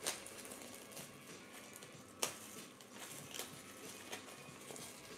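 Clear plastic shrink-wrap being torn and peeled off a cardboard trading-card hobby box: faint crinkling with a few sharp crackles, the loudest about two seconds in.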